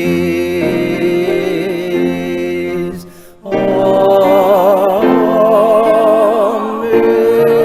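Music: a voice singing long held notes with vibrato over a sustained accompaniment, breaking off briefly about three seconds in before carrying on.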